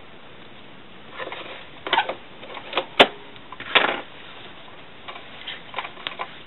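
A cloth bag's fabric rustling and shifting as it is handled and drawn out from under a sewing machine's needle, with scattered clicks and knocks and one sharp click about three seconds in. The sewing machine itself is not running.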